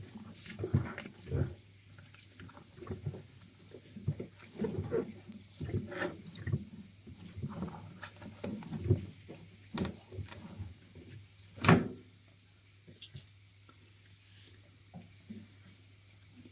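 Washing machine drain hose being worked by hand to pull out a sock clogging it: irregular wet handling, rubbing and clicks with a little water. There is a sharper knock about twelve seconds in, then only faint handling.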